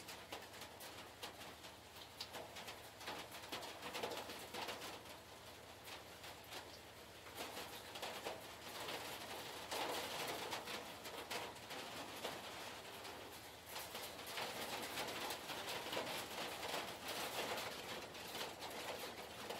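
Outdoor ambience under an approaching thunderstorm: a faint, even hiss with scattered fine ticks, swelling about eight seconds in and again near the end.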